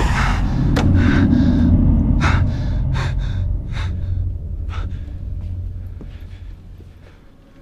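Low rumble fading away over several seconds after a boom, with short, sharp gasping breaths scattered through it.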